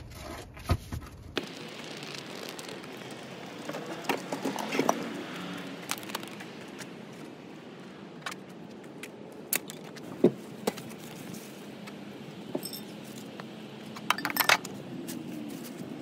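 Scattered clanks, rattles and knocks of loose metal parts and debris being pulled out of an old car's gutted interior and dropped, over a steady background noise. The sharpest knock comes about ten seconds in, and a quick cluster of clatter near the end.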